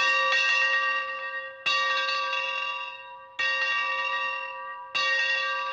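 A bell struck four times, about every second and a half, each stroke ringing on with several clear tones and fading before the next.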